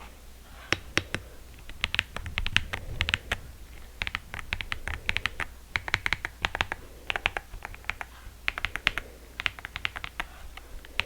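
E-Yooso Z-99 hot-swappable mechanical keyboard being typed on: rapid key clicks in irregular bursts, with short pauses between runs of keystrokes.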